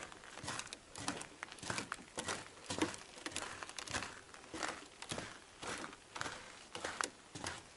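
Footsteps crunching on a thin layer of snow over a wooden boardwalk, at an even walking pace of about two steps a second.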